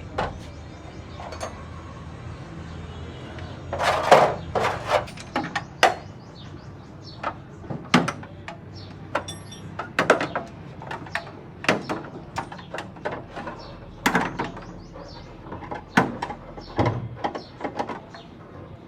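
A series of irregular sharp knocks and clatters, with a dense cluster about four seconds in and more spaced through the rest, over a low steady background hum.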